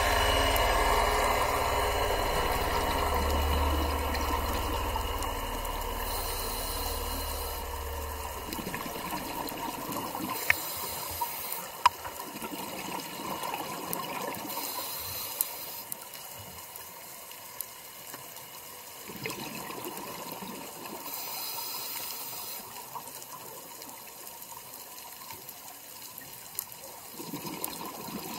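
Underwater sound of scuba diving: bubbles from divers' regulators bursting out every few seconds over a muffled rush of water, with a few sharp clicks. A low rumble fades out about eight seconds in.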